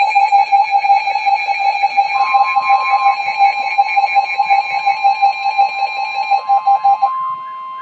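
Emergency Alert System alert tones: a loud pulsing electronic tone, joined about two seconds in by a second, slightly higher steady tone. The lower tone cuts off near the end while the higher one carries on.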